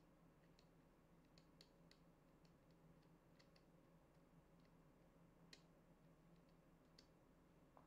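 Faint, irregular clicks of control buttons being pressed on a handheld LED tube light, over near-silent room tone; the loudest click comes about five and a half seconds in.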